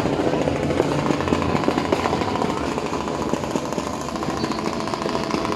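Fireworks and firecrackers going off in a dense, continuous rapid crackle of many small bangs.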